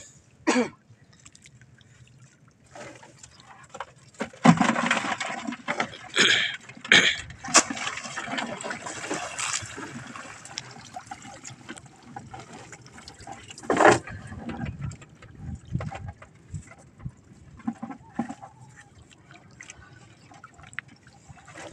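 Sea water splashing and running off as a wet collapsible net fish trap is lowered over the side of a small wooden outrigger boat and its rope is hauled in. Irregular splashes and dripping, busiest early on, with one sharp splash or knock about 14 seconds in.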